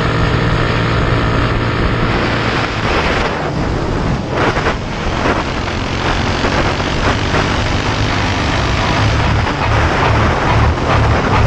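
Mini bike's small engine running at cruising speed, with wind rushing over the microphone. A steady drone for the first couple of seconds turns rougher and windier after that.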